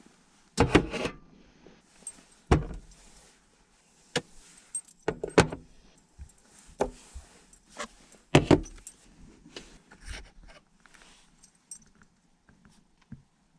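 Irregular knocks and clatters from objects being handled inside a small camper van, about seven loud ones with light metallic clinking and jingling between them.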